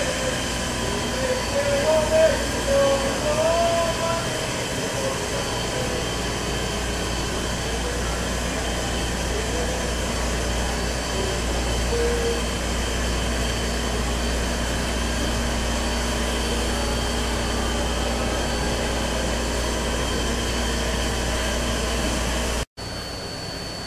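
Steady hum and low rumble of background machinery, with a few constant tones over it. Faint distant voices are heard in the first few seconds. The sound cuts off abruptly near the end and drops to a quieter steady hum.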